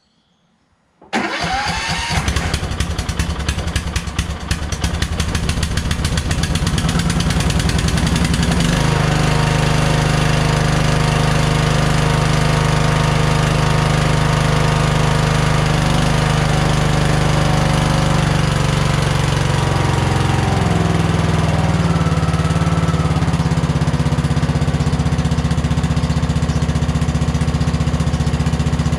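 Rebuilt Kohler engine of a Toro LX460 lawn tractor starting about a second in and running. It settles into a steady, smooth run after about eight seconds, without hesitating or surging, and its note changes about twenty seconds in.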